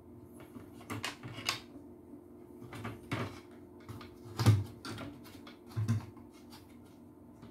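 Clicks and knocks of a vacuum cleaner motor and its plastic housing being handled and fitted together by hand, the loudest knock about four and a half seconds in and another near six seconds, over a faint steady hum.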